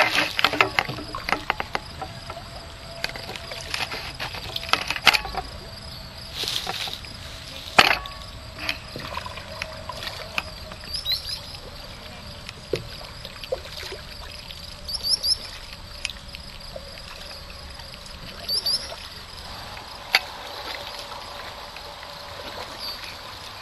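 Kayak paddle strokes in calm water: irregular splashes and drips as the double-bladed paddle dips and lifts, with a few short high chirps in between.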